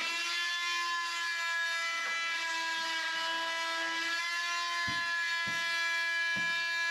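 A small electric power tool's motor runs at a steady speed, giving a high whine that holds nearly one pitch. Three low knocks come near the end.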